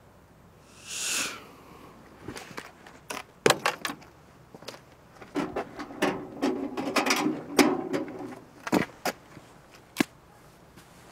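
Sharp clicks, knocks and rattles of small hard objects being handled, several a second, as a car key is fished out and passed over, after a short rushing swell about a second in.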